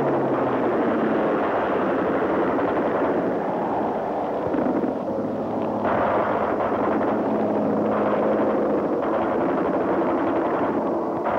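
Piston-engined fighter planes droning in flight: a steady, rough engine roar on an old film soundtrack.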